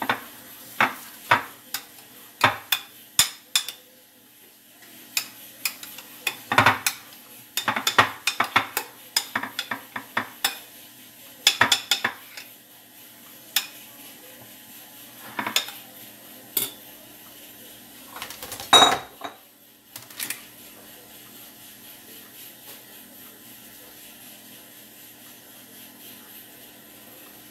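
A metal spoon stirring and scraping mashed potato salad in a glass dish, with repeated sharp clinks of the spoon against the glass. A louder clatter comes near the end of the clinking, about three-quarters of the way through, and after it only a steady low background remains.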